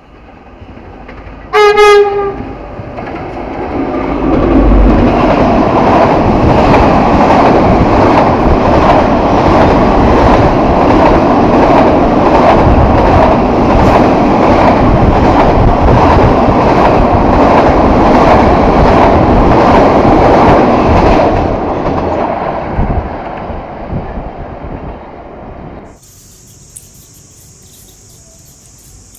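Diesel-hauled container freight train: the locomotive gives one short, loud horn blast about two seconds in. The train then rushes past close by, a loud rhythmic clatter of wheels over the rail joints that builds, holds, then fades. About 26 seconds in the sound cuts off suddenly to a quieter steady high-pitched hum.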